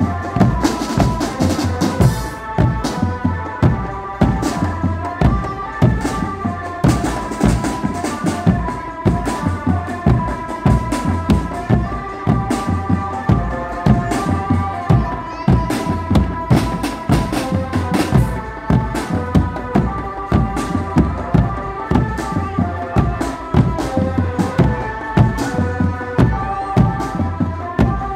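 Drumband playing: large bass drums beaten with mallets together with snare and tom sets and cymbals, in a steady, driving rhythm, with a high melody line running over the drumming.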